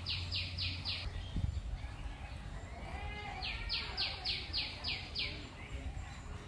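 A bird calling in two runs of quick, high notes that each sweep downward, about four a second: a short run at the start and a longer one past the middle. A dull low thump comes about a second and a half in.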